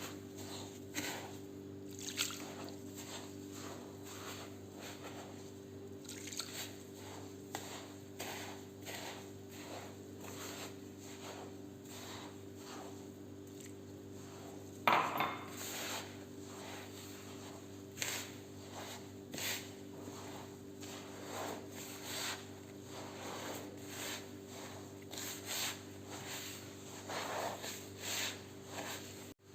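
Orange blossom water and water poured into coarse semolina and sugar in a bowl, which is then worked through by hand in repeated wet rubbing, squishing strokes about once a second. There is one sharper, louder sound about halfway through.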